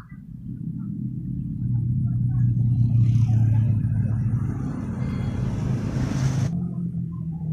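A low engine rumble, as of a motor vehicle running close by, builds over the first couple of seconds and stays loud. A hiss rides over it and stops abruptly about six and a half seconds in.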